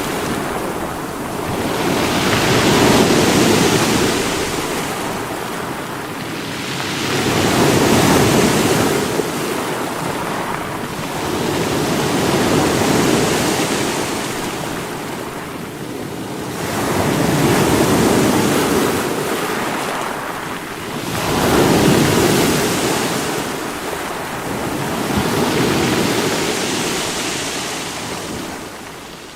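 Sea waves breaking against rocks. Each surge of surf swells and washes back about every four to five seconds.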